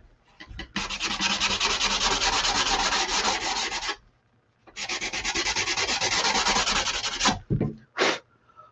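Sandpaper on a small handheld finger sander rubbed back and forth along the edges of a painted wooden sign, distressing them for a weathered look. Quick short strokes in two runs of about three seconds with a brief pause between, then a couple of short scrapes near the end.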